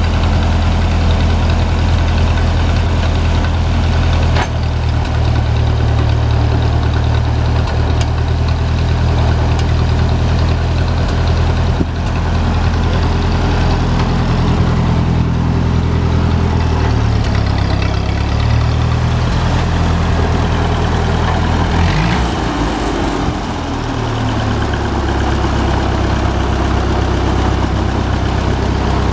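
Ford 8N tractor's four-cylinder flathead gasoline engine idling steadily. Its engine speed wavers briefly about three-quarters of the way through, then settles back to an even idle.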